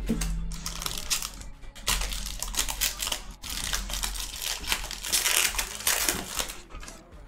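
Foil wrapper of a Panini Illusions trading-card pack crinkling and tearing as it is ripped open by hand, a dense crackle of small snaps coming in several bursts.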